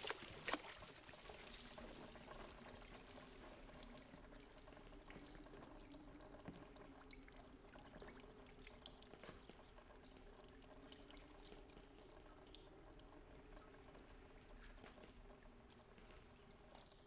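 Faint dripping and trickling of thick liquid slurry falling from a broken ceiling onto a heap of acid-dissolved sludge, with a last splat about half a second in. A low steady hum lies underneath.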